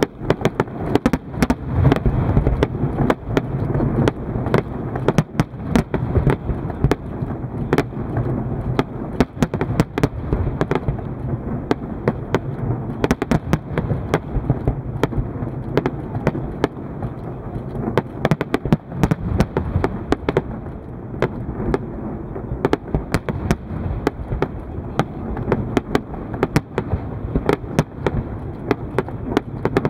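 Aerial firework shells bursting in rapid, continuous succession: many sharp bangs, several a second, over a steady low rumble of overlapping reports.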